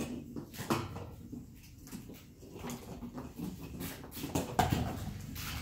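Plastic electronic cat toy rolling and knocking about on a hardwood floor as a cat bats at it: irregular taps and clatters, the loudest just under a second in and again about four and a half seconds in.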